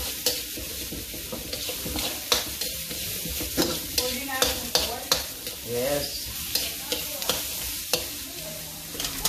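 Diced onion and ginger sizzling in hot oil in a stainless steel wok while a spatula stirs and scrapes them, with frequent sharp clicks of the utensil against the pan.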